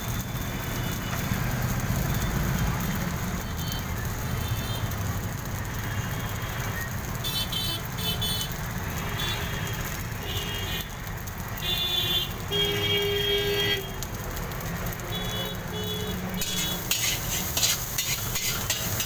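Steady low rumble of a street-side cooking stall, with short high beeps here and there. About three seconds before the end, a metal spatula starts scraping and clattering against the iron wok as the egg fried rice is stirred.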